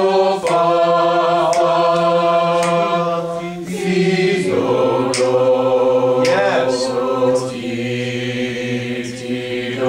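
A class of students singing a solfège sight-singing exercise together in long held notes, stepping to a new pitch a few times.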